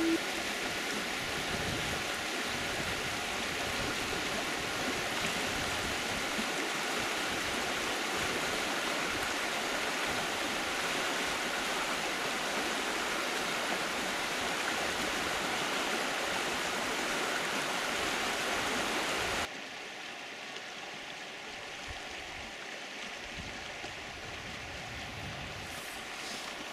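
Fast-flowing stream rushing over stones, a steady even rush of water. About two-thirds through it cuts suddenly to a quieter, softer water and outdoor background.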